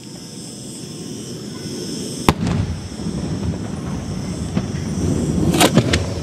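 Maltese beraq firework shells going off: one sharp bang about two seconds in, followed by a low rolling rumble, then three bangs in quick succession near the end.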